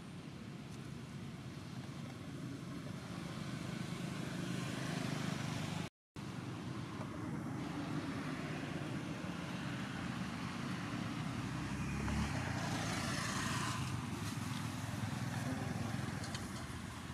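Steady low outdoor rumble with no animal calls. A brighter hiss swells about twelve seconds in, and the sound cuts out completely for a moment about six seconds in.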